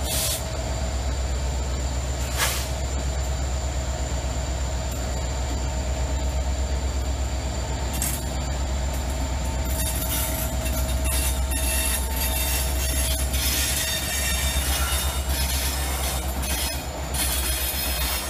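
EMD SD90MAC and SD70M diesel locomotives rolling slowly past under power, with a deep, steady engine rumble and two sharp knocks in the first few seconds. From about ten seconds in, the loaded coal hoppers following them bring a high-pitched wheel squeal over the rumble.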